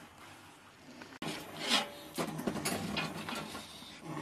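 Kitchen knife cutting through a raw whole chicken in a metal basin: a series of rough sawing and scraping strokes that start about a second in.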